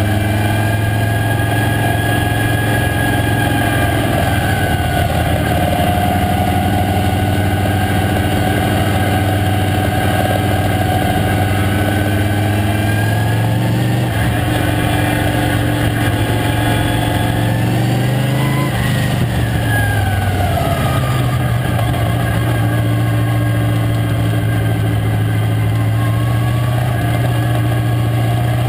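Late model stock car's V8 engine running hard at racing speed, heard from inside the cockpit, loud and continuous. The engine note shifts as the car laps, with a clear climb and drop in pitch about two-thirds of the way through.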